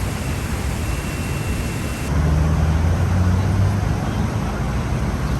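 City street traffic noise, with a low engine drone from a passing vehicle rising about two seconds in and then fading.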